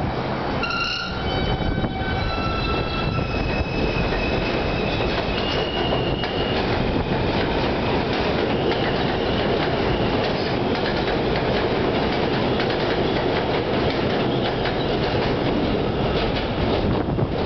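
R160B subway train pulling out and picking up speed: high whining tones from its propulsion shift pitch in steps over the first few seconds. A steady rumble and clatter of wheels on the elevated track runs beneath and carries on as the cars go by.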